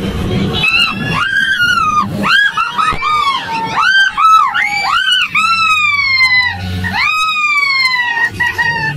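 A very high-pitched voice: a quick run of short rising-and-falling cries or notes, then two long falling glides.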